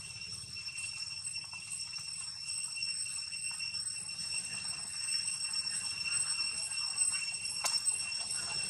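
A steady high-pitched ringing drone, with a low rumble underneath and a single sharp click near the end.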